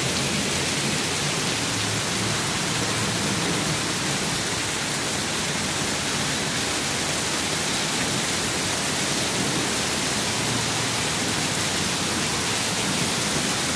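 Hail mixed with rain falling heavily and steadily on asphalt and concrete, making a dense, even hiss.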